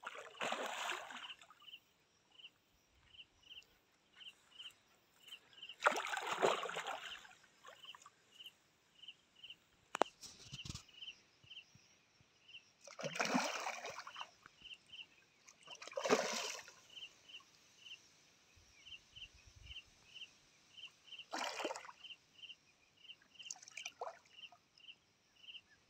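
River water splashing in short bursts at the bank's edge as hands work in the shallows, about six times, with a faint steady run of short insect chirps at about two a second.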